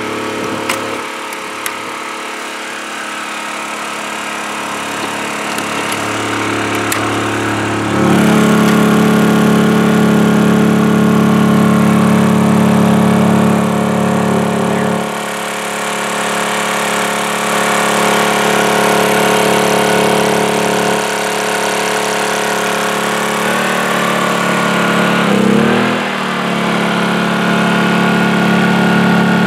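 Honda EU2000i inverter generator's small single-cylinder four-stroke engine running steadily inside a plywood quiet box. A few sharp clicks come in the first seconds as the box's metal latches are undone, then about 8 s in the lid comes open and the engine gets plainly louder. Its engine speed wavers briefly a few seconds before the end.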